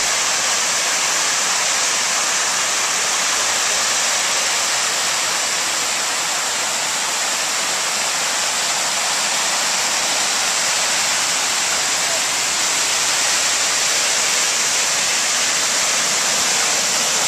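Water spilling over the edge of a reflecting pool and sheeting down its side wall: a steady, even rush of splashing water.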